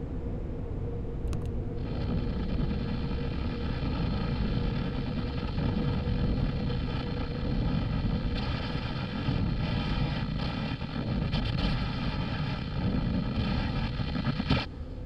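Sound-designed alien signal playing back: a deep rumbling drone with a faint steady hum. About two seconds in, a buzzing electronic tone made of many stacked pitches joins it, holds, and cuts off suddenly with a click near the end.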